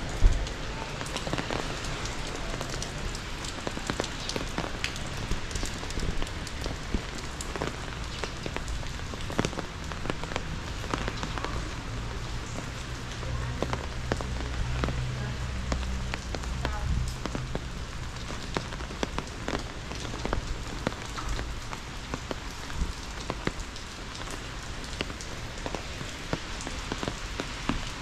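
Steady rain falling, with many separate drops ticking on nearby surfaces. A low rumble swells and fades in the middle.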